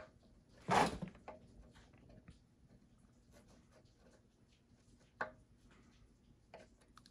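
Small screwdriver working epoxy into the fins of an aluminum radiator core: quiet handling with faint ticks and scrapes, a short rush of noise about a second in and a sharp click about five seconds in.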